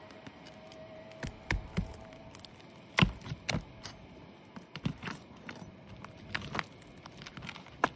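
Scattered sharp clicks and knocks of nails being pried and pulled out of a tarp on a shingle roof, the loudest knock about three seconds in.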